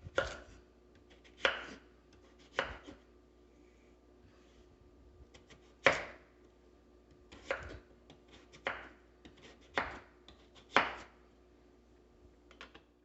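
Kitchen knife chopping a peeled white radish into pieces, about eight separate sharp knocks of the blade hitting the cutting board, roughly one a second with a short pause partway through.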